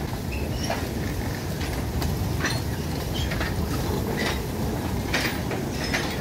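Loaded narrow-gauge sugarcane wagons rolling past: a steady low rumble of wheels on rail, broken by irregular clicks and short high squeaks from the wheels about once or twice a second.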